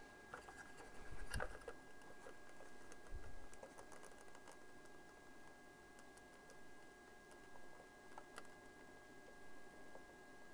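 Faint, scattered clicks and taps of small tools, wire and components being handled while wiring a circuit board, with a slightly louder knock about a second and a half in. A faint steady whine sits underneath.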